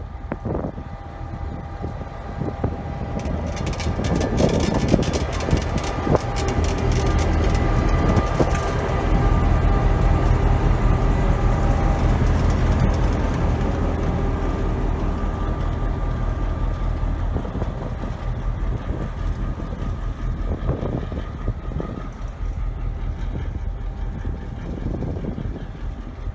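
DBR-class diesel-electric locomotive's engine working as the loco pulls away light past the platform, the deep engine rumble swelling to its loudest about ten seconds in and then easing off as it moves away. A few sharp clicks and clanks come about four to six seconds in.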